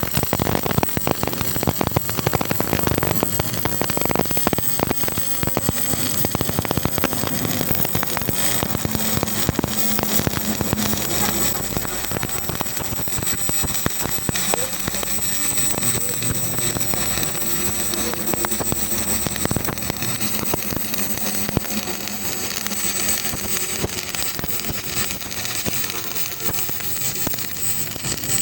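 Electric arc welding: a continuous crackling hiss, densest and most crackly in the first several seconds, then settling into a steadier sizzle.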